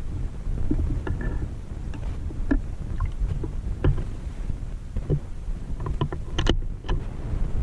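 Muffled underwater noise: a steady low rumble of water moving past the microphone, with scattered sharp clicks and knocks, the loudest about six and a half seconds in.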